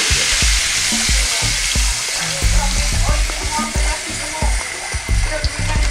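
Coconut milk streaming through a strainer into a hot wok and sizzling steadily in the oil, as the coconut rice base cooks.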